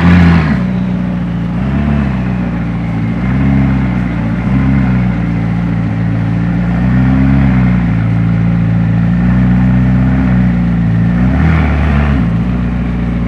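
McLaren 600LT's twin-turbo V8 running loud, with a surge at the start, then settling and rising briefly in revs a few times.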